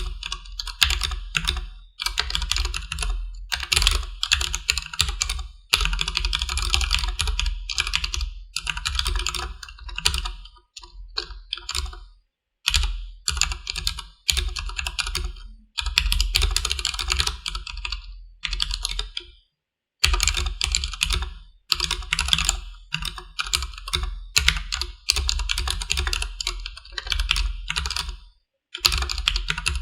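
Fast typing on a Durgod Taurus K320 tenkeyless mechanical keyboard with stock Cherry MX Black linear switches: dense runs of keystroke clacks with short pauses between bursts.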